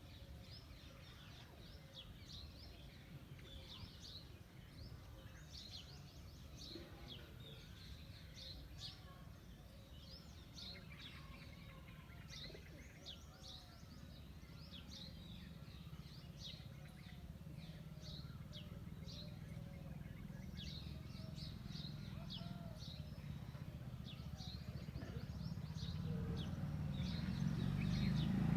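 Small birds chirping, many short quick high calls repeating one after another, over a low rumble that grows louder near the end.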